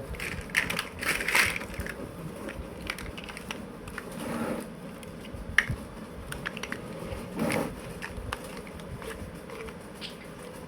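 Plastic building blocks being handled, with irregular small clicks and a few short rattling scrapes as pieces are moved and fitted together.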